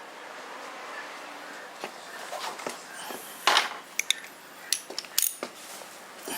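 Metal tools and small parts clinking and clattering while the shift lever of a Tohatsu two-stroke outboard is being dismantled: a few sharp clicks and knocks in the second half, the loudest a short scrape about three and a half seconds in.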